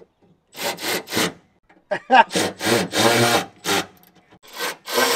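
Cordless power driver run in about ten short rasping bursts, driving the mounting bolts into an aluminium battery mount; one burst about two seconds in starts with a brief rising whine as the motor spins up.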